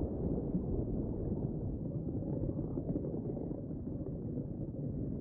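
Deep, steady rumbling noise of an underwater-themed outro sound effect, slowly fading.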